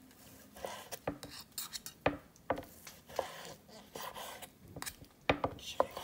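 Chef's knife slicing cooked chicken breast on a wooden cutting board: a string of irregular knocks as the blade strikes the board, a few of them louder.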